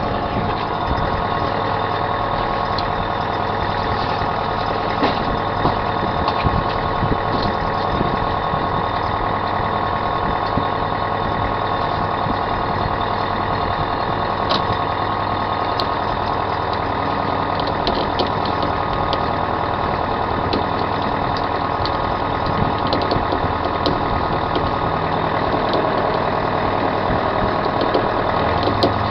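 Fishing boat's inboard engine running steadily at trolling speed, a constant even drone, with occasional small clicks and knocks from the gear on deck.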